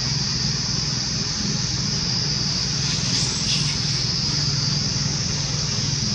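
Steady outdoor background noise: a constant high-pitched drone over a low hum, with no distinct animal calls standing out.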